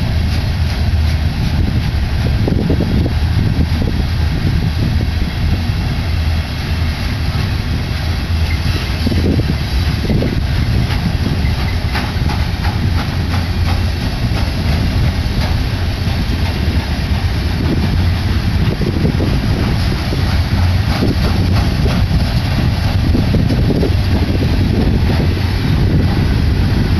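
A freight train of flatcars heavily loaded with tanks and military vehicles rolling past close by. Its steel wheels give a steady, loud rumble on the rails, with scattered clicks.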